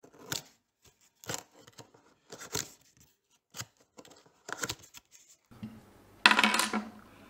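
Hands handling parts in a cardboard box: short, sharp clicks or snips about once a second. About six seconds in comes a louder half-second rustle as the parts are set down on a tabletop.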